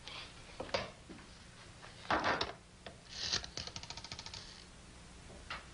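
Small household objects being handled and rummaged through: a few knocks, a clatter about two seconds in, then a quick rattling run of clicks.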